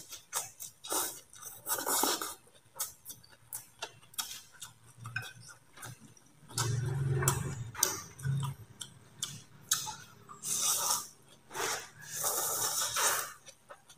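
Close-up eating sounds: a man slurping rice vermicelli noodles in loud, hissy sucks and chewing with wet mouth clicks, chopsticks clicking against the bowl now and then. A low hum from his closed mouth sounds briefly in the middle.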